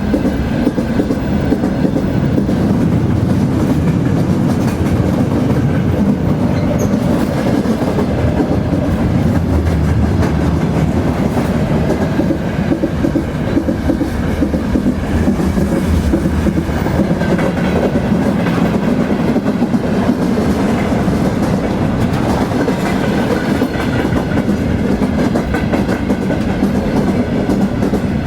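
Train rolling steadily along the track: a continuous low rumble with a constant rattle of wheels on the rails.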